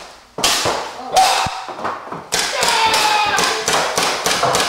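Paintball markers firing in rapid, uneven volleys: about ten sharp cracks over a few seconds, each trailing off briefly.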